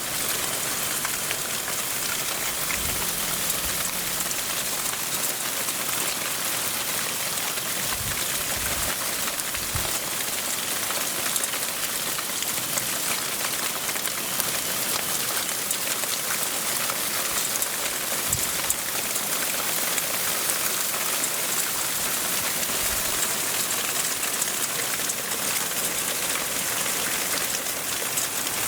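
Hail falling and striking surfaces steadily: a dense, even hiss of countless fine ticks, with a few brief low thumps.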